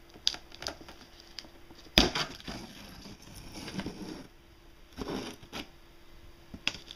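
A knife slitting packing tape along the seam of a cardboard box: crackling tape and scraping cardboard, broken by a few sharp knocks, the loudest about two seconds in and another about five seconds in.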